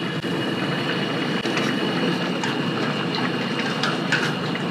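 Steady rushing hiss of a gas camp stove burner running on a strong flame under a pan of boiling pasta water.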